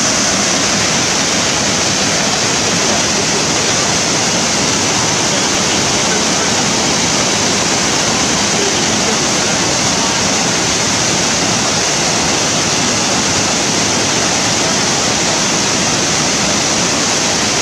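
Waterfall cascading down a rocky slope: a loud, steady rush of falling water that does not change.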